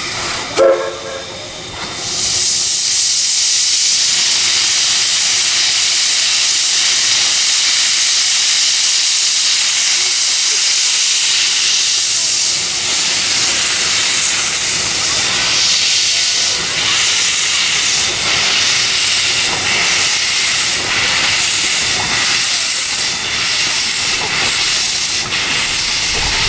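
JNR Class C11 steam tank locomotive C11 227 blowing steam from its open cylinder drain cocks: a loud, steady hiss that starts about two seconds in. A brief pitched sound comes about half a second in.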